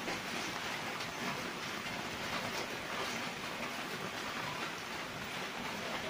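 Steady rain falling on broad-leaved garden plants and a wet, puddled path: an even, unbroken wash of rain noise.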